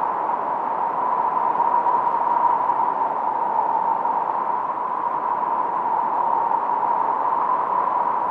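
Steady synthesizer noise from a 1972 Minimoog, strongest in a narrow middle band, with no deep rumble and little high hiss.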